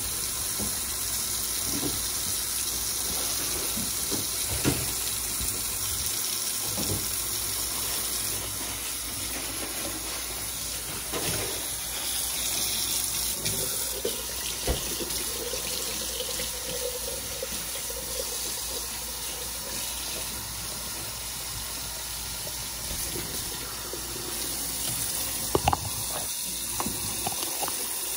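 Kitchen faucet running steadily into a stainless steel sink, the stream splashing over a wet cat being bathed. A few brief knocks sound early on and again near the end.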